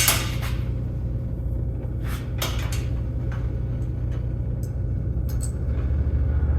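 Steady low machine hum that swells slightly late on, with a few brief handling clicks and rustles over it.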